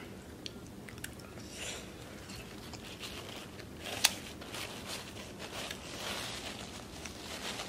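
Close-up eating sounds: chewing and biting with wet mouth noises and small clicks, and one sharp click about four seconds in.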